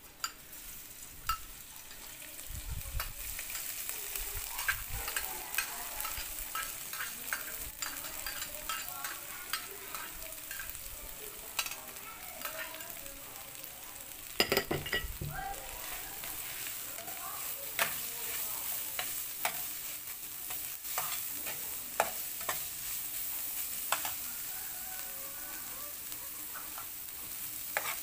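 Minced garlic and yellow spice paste sizzling in hot oil in a nonstick frying pan, the sizzle building up just after they go in. A metal spatula clicks and scrapes against the pan as it is stirred, with a louder clatter about halfway through.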